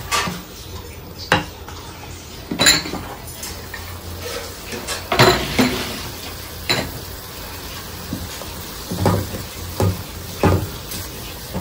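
Wooden spoon stirring and knocking against a metal kadhai while an onion-and-spice masala fries, with a faint sizzle underneath. The knocks come irregularly, about one a second.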